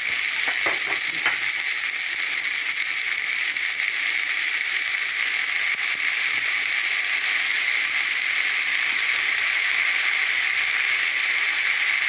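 Freshly added chopped spinach sizzling steadily in hot oil in a kadai, with a few light scrapes of a wooden spatula near the start.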